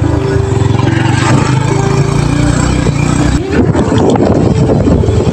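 Vehicle engine running steadily while driving along a broken, potholed road. About three and a half seconds in, the sound turns rough and uneven.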